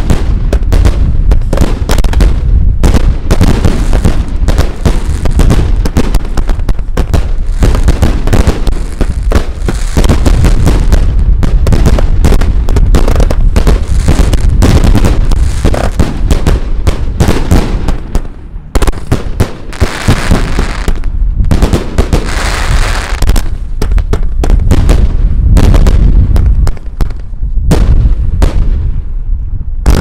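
Aerial fireworks going off in rapid succession: a dense run of overlapping launches and bursting shells, with a short lull about 18 seconds in and another near 27 seconds.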